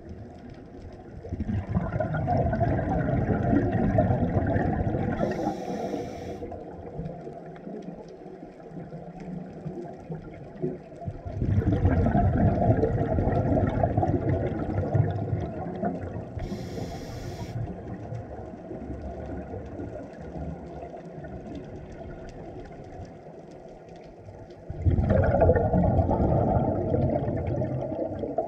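Scuba breathing heard underwater through a regulator. There are three long rushes of exhaled bubbles, several seconds each and about ten seconds apart, with a short hiss of the regulator's inhale between them.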